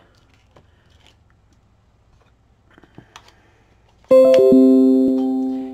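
A few faint taps as a stamp is pressed onto a paper tag. Then, about four seconds in, a loud sustained musical chord of several notes starts suddenly, its notes coming in one after another, and slowly fades.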